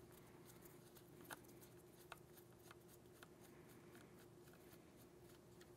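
Near silence with a faint steady hum, broken by a few faint ticks from a screwdriver turning the screw in a shotgun's pistol-grip base plate, the clearest about a second in and again about two seconds in.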